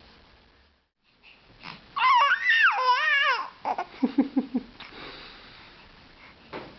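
A baby vocalizing: a loud, high, wavering squeal about two seconds in, then a quick run of short, lower fussing sounds.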